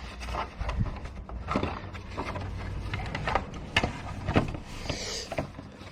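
Plastic side-mirror parts being handled: irregular light clicks and knocks as the mirror cap and its small centering piece are moved and fitted by hand.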